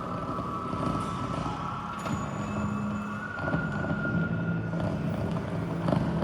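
Improvised experimental music for turntables and drums: a high held tone over layered low droning tones, which shift in pitch about halfway through.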